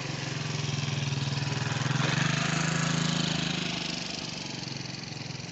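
A small petrol engine running with a steady low hum. It grows louder to a peak about two to three seconds in, then fades.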